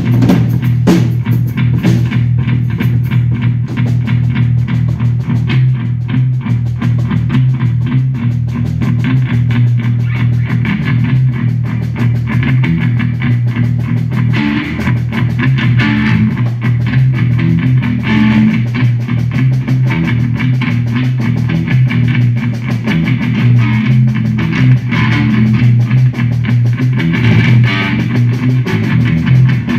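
Live instrumental rock from an electric bass guitar run through effects pedals, holding a heavy, sustained low drone, with a drum kit playing along. The music grows busier in the upper range about halfway through.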